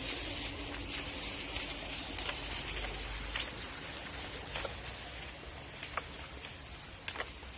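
A steady high hiss, with a few scattered light taps and clicks of footsteps on a paved walkway.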